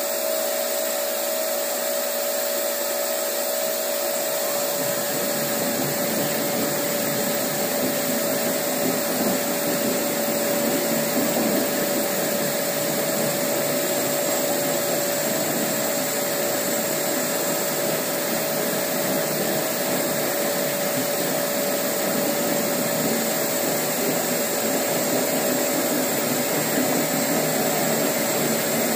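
Planetary concrete floor grinder polishing a concrete slab on resin diamond pads, running steadily together with its dust-extraction vacuum: a constant whining hum with a steady high tone. A deeper rumble joins about four seconds in.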